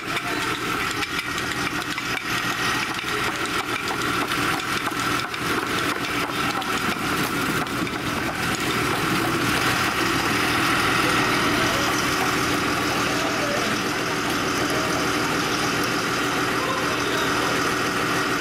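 An engine running steadily, with irregular rattling clicks over the first half.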